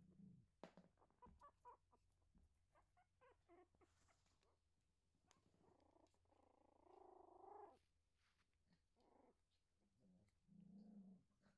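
Young Yorkshire terrier puppies vocalising softly: a run of short squeaks in the first few seconds, a longer whine about six seconds in, and a low grunt near the end.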